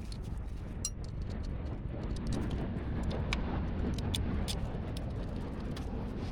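Scattered light metallic clinks and ticks of hand tools and bolts as an alternator is bolted back in, a few sharper ones standing out, over a steady low rumble.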